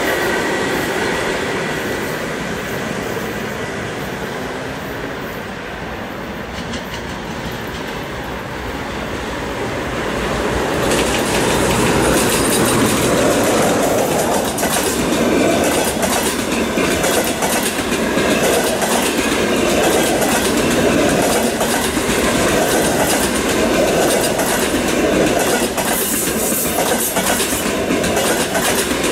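Russian EP20 electric locomotive and its double-deck passenger coaches running past on the track. A steady rumble on the approach grows louder about a third of the way in as the coaches go by, with a rhythmic clickety-clack of wheels over the rail joints.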